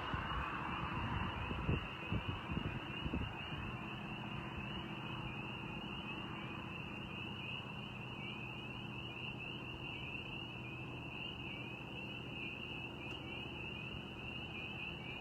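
Chorus of spring peepers: many short, rising peeps overlapping in a continuous high chorus. Wind buffets the microphone with low gusts during the first few seconds.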